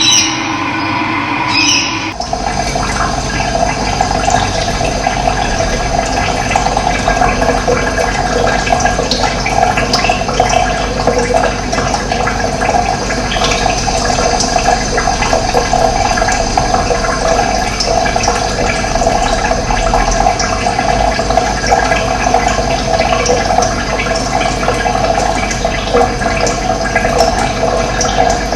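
Running water rushing steadily. It starts about two seconds in, when a short pitched sound cuts off.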